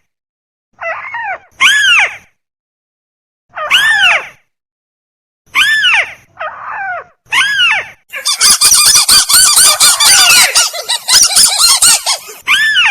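Lure recording of tikusan rail calls. Arched, downward-sliding notes come in pairs with short gaps, then about eight seconds in they turn into a dense, rapid run of overlapping calls for about four seconds.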